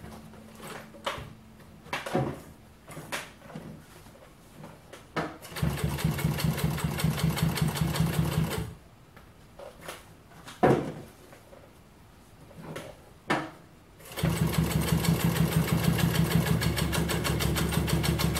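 Rex 26-188 (Nakajima TDU-N62) drop-feed walking-foot industrial sewing machine stitching through three layers of 12-ounce denim in two fast, steady runs, one of about three seconds and a longer one starting near the end. Between the runs come scattered clicks and knocks, with one sharp knock about halfway through.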